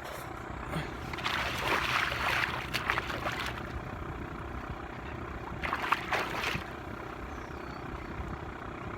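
A boat motor running steadily, with water noise swelling twice.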